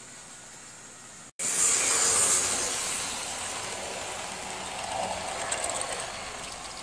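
HO scale model train cars rolling past close by, a noisy running rattle of wheels on track. It starts abruptly about a second in, is loudest just after, then eases off, with a few light ticks near the end.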